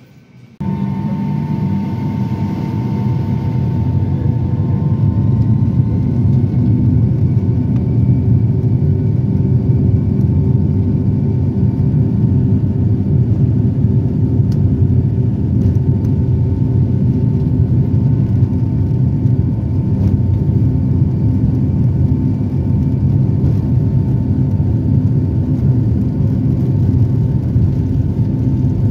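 Boeing 757-200 jet engines running at taxi power, heard inside the cabin beside the wing: a steady rumble with a steady whine, starting abruptly just after the start and growing a little louder over the first few seconds.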